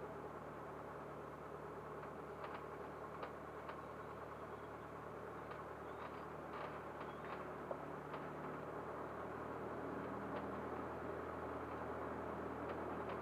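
Cessna 152's four-cylinder Lycoming piston engine running at low power, a steady low drone that shifts in pitch about two-thirds of the way through, with scattered small clicks.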